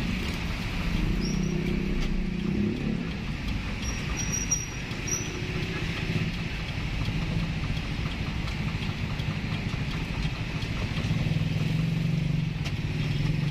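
Steady engine and road noise of a moving van, heard from inside its cab, growing a little louder near the end.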